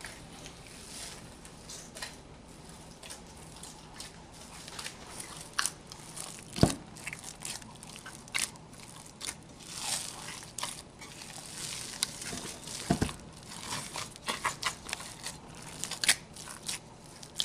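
Hands pushing down risen yeast bread dough in a stainless steel mixing bowl after its first rise, a run of short irregular crackles as the dough is pressed and pulled. Two sharper knocks sound about seven and thirteen seconds in.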